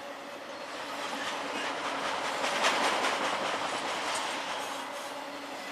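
Intermodal freight train cars carrying containers and highway trailers rolling past close by, wheels clacking over the rails. The rumble swells to its loudest a little before halfway through, then eases.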